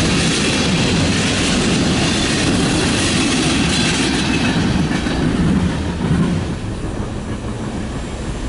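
Tail end of a freight train of gondola cars rolling past, steel wheels running on the rails. The rumble fades from about six seconds in as the last car moves away.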